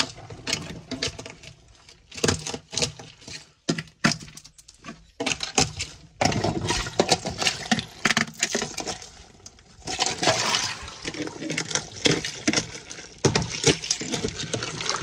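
Ice slabs in a water-filled chest freezer being broken up into chunks, struck with a wooden-handled tool: irregular cracks, knocks and clinks of ice throughout.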